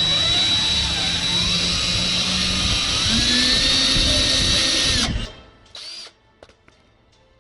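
Cordless drill boring holes through a steel exhaust tailpipe: the motor whines steadily, its pitch shifting with the trigger, then it stops suddenly about five seconds in, followed by a brief second burst.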